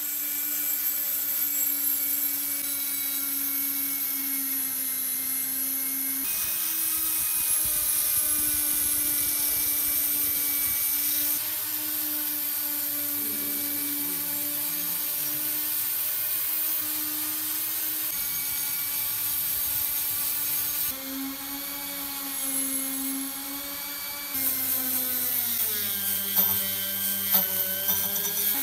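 Small electric power tool running with a steady whine and hiss, in several spliced clips. Near the end its pitch drops, with a few sharp scrapes.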